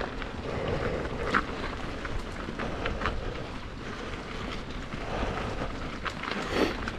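Mountain bike rolling along a dirt trail: steady tyre and wind noise with scattered clicks and rattles from the bike.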